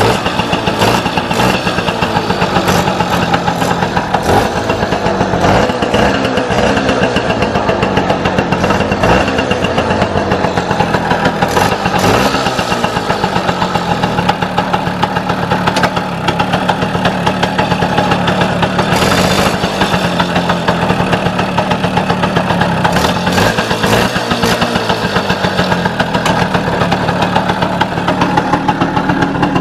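The 50 cc two-stroke single-cylinder engine of a Balkan 50 Mk3 moped, running at idle just after starting, its speed rising and falling a little. This is the moped's first start after a year standing.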